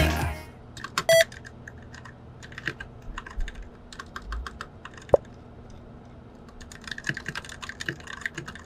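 Light, irregular clicking of keys being typed on a keyboard, with a short beep about a second in.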